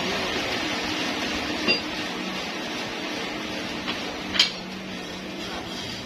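Sawmill machinery running with a steady hum, broken by sharp metallic clinks that ring briefly, the loudest about one and a half and four and a half seconds in.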